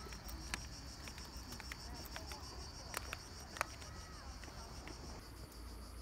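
Insects chirping in a steady, fast, even pulse, with a second, higher insect drone joining near the end. A few sharp taps of footsteps on concrete steps sound over it.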